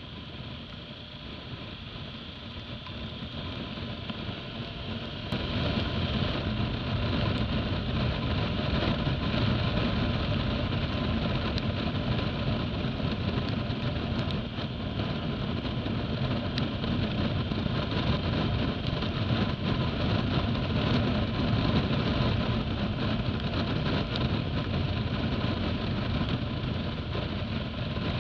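Motorcycle engine running under way, mixed with wind and road noise as heard from the rider's seat. It gets louder about five seconds in as the bike accelerates, then runs steadily.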